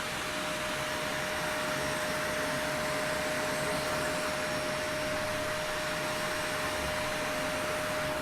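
Vacuum cleaner running steadily: an even rushing noise with a constant whine.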